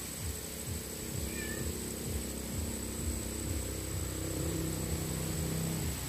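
Strong wind gusting through swaying bamboo, with gusts buffeting the microphone. A steady low hum runs underneath, and a brief faint high chirp comes about a second and a half in.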